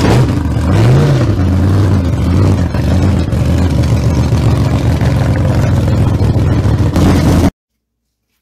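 A vehicle engine running loudly and steadily, with a brief rev up and back down about a second in. It cuts off abruptly near the end.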